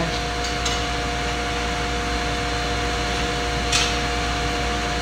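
Steady drone of running foundry machinery: a low rumble with a few steady humming tones over it. A brief sharp hiss comes about four seconds in.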